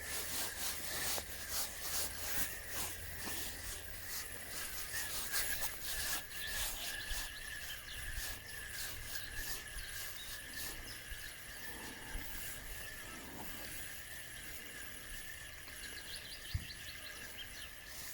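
Calm lakeside outdoor ambience: a steady high-pitched trill runs throughout. Light irregular clicks and rustles come through the first half, and a few short bird chirps sound near the end.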